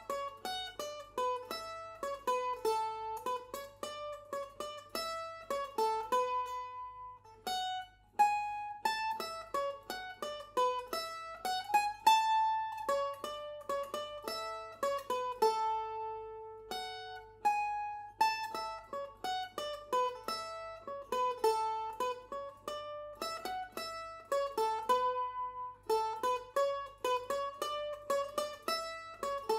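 Mandolin-family instrument playing a Shetland waltz tune as a single melody line of plucked notes, each dying away quickly, with short breaks between phrases.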